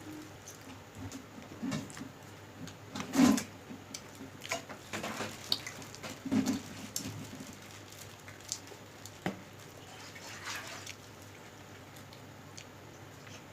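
Wet clicks and smacks of someone eating khichdi, irregular and scattered. The loudest comes about three seconds in, and another strong one near six and a half seconds.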